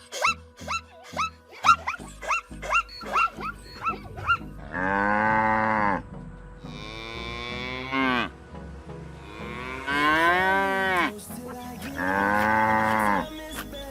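A cow mooing four times in long, drawn-out calls, after a quick run of short, rapid rising-and-falling calls that fills the first four seconds.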